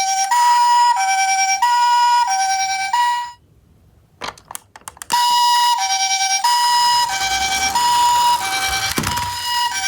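Electronic two-tone ambulance siren in the Japanese hi-lo 'pee-po' pattern, a higher and a lower tone alternating about every two-thirds of a second. It stops about three seconds in, leaving a couple of seconds with only a few light clicks, then starts again and runs to the end.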